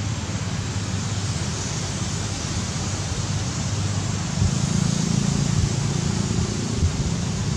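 Steady wind noise on the microphone with a low rumble, a little stronger from about halfway in; no monkey calls.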